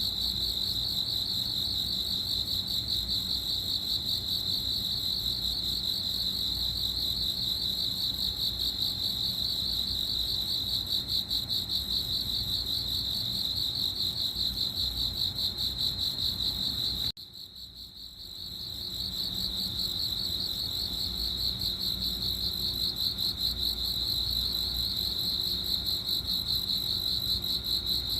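Crickets chirping in a steady, high, rapidly pulsing trill. About seventeen seconds in it cuts off suddenly, then fades back up over a couple of seconds and carries on as before.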